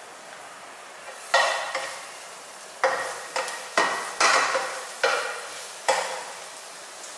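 Minced garlic sizzling in a little hot oil in a nonstick frying pan, stirred with a plastic spatula: a steady hiss, then from about a second in about seven scraping strokes of the spatula across the pan, each followed by a surge of sizzling.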